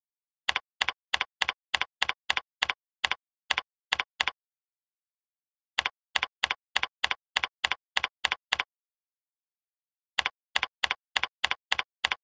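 Computer keyboard keystroke clicks, about three a second, in three runs with pauses of a second or more between them, as words are typed. There is dead silence behind the clicks, typical of a typing sound added to a software screen recording.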